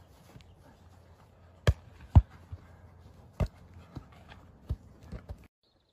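A volleyball being struck back and forth in a rally: a string of sharp slaps, the loudest about two seconds in, with softer knocks between them. The sound cuts out abruptly shortly before the end.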